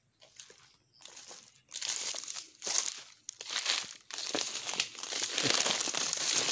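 Footsteps crunching through dry fallen oil palm fronds and leaf litter: a few separate steps at first, then a denser, louder crackling and rustling from about two seconds in.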